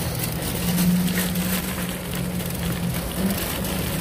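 Loaded shopping cart pushed across an asphalt parking lot, its wheels and wire basket rattling steadily with a low rumble.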